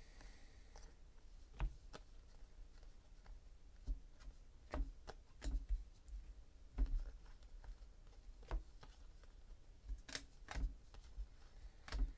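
Stack of Panini Contenders football trading cards flipped through by hand one at a time, each card giving a soft click or snap as it slides off the stack. The clicks come irregularly, about one or two a second, with a few sharper snaps near the end.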